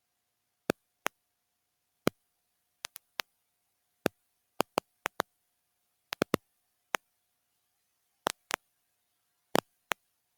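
Sharp clicks and pops at irregular intervals, about twenty in ten seconds, some in quick pairs or triplets, over a faint steady tone, in the audio of a TV emergency alert system test played back from a VCR tape.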